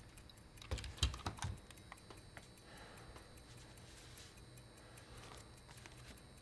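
A few sharp clicks and knocks about a second in, then soft, sparse paper rustling and clicking as a bundle of envelopes and postcards is handled and leafed through.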